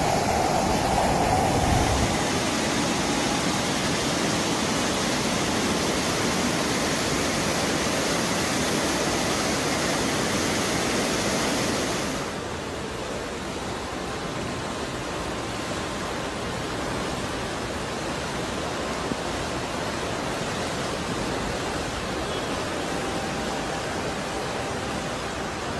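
Floodwater rushing in a fast torrent, a steady dense noise of churning water. About twelve seconds in it drops to a quieter, duller rush.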